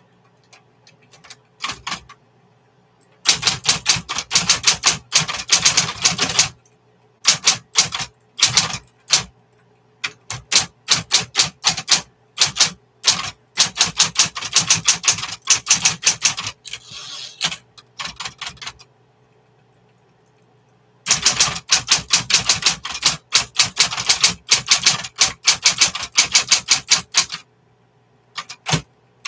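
Smith-Corona Coronet electric typewriter being typed on in fast runs of keystrokes, each run lasting a few seconds, with short pauses between runs, the longest near two thirds of the way through. A steady low hum sounds under the pauses.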